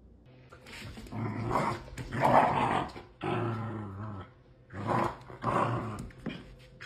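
A dog growling in a string of rough bursts as it mouths and tugs at a person's slipper and foot.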